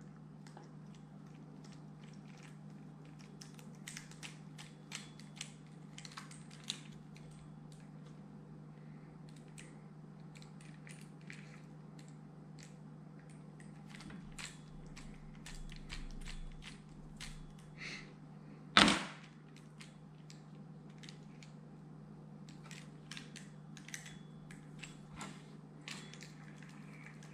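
Faint scattered clicks and ticks of a new spinning reel being handled and worked over, its handle being moved to the other side, with one louder snap about two-thirds of the way through. A steady low hum runs underneath.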